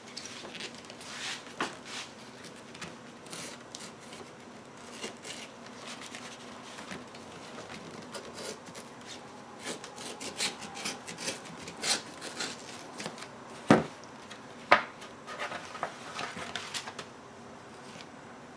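Kitchen knife slitting open a paper mailing envelope, with irregular crackling and rustling of the paper as it is cut and handled. Two sharp knocks about a second apart come in the later part.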